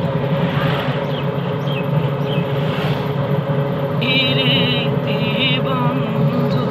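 Auto-rickshaw engine running steadily, heard from inside the passenger cabin while riding. About four seconds in, a warbling high-pitched sound comes twice in short spells.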